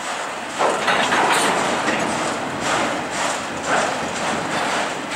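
Autorack freight cars rolling past on steel wheels: a steady rumble and clatter that swells and eases every second or so as the wheel sets go by.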